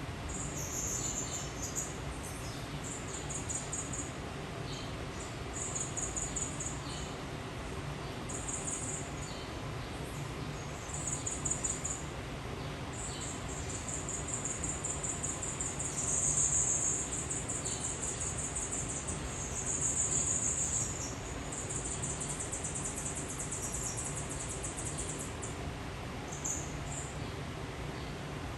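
Insects trilling: repeated high-pitched buzzy trills in bursts of one to three seconds, over a steady low hum.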